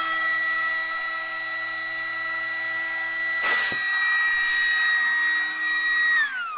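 Electric air pump running with a steady high whine as it inflates a chamber of an inflatable pool, with one short knock about halfway through. Near the end it is switched off and the whine falls in pitch as the motor spins down.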